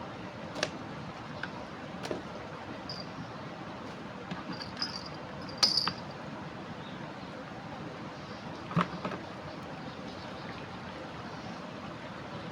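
Steady rush of a river in flood, with several sharp clicks and knocks over it, the loudest a little before the middle.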